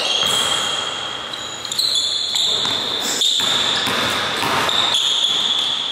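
Basketball being dribbled on a hardwood gym floor during a one-on-one drive, with high-pitched sneaker squeaks as the players cut and shuffle.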